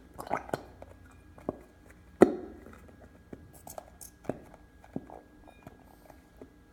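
Scattered taps and knocks from a squeeze bottle of school glue being handled and emptied over a mixing bowl, with one louder knock a little over two seconds in.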